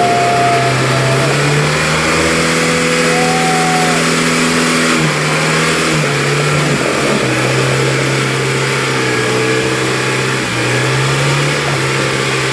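UAZ off-road vehicle's engine running hard at held revs while crawling through deep mud, its pitch stepping up and down several times as the throttle changes. A thin higher whine rises over it twice near the start.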